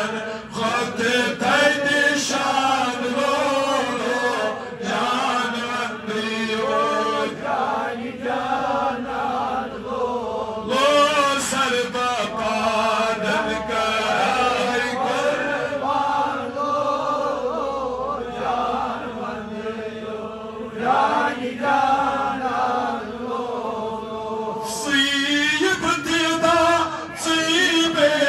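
A man chanting a Kashmiri naat (devotional poem in praise of the Prophet) into a microphone, in long drawn-out melodic phrases with short pauses between them, over a steady held tone underneath.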